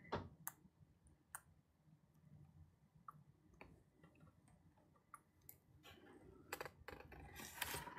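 Near silence with a few faint, scattered clicks and a soft rustle near the end: light handling noise from hands tipping a sheet of wet watercolor paper and holding a small squeeze bottle of granulation medium.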